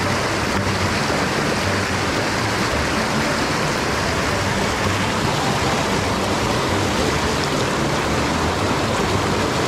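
Steady rush of a mountain headwater stream, an even hiss of flowing water.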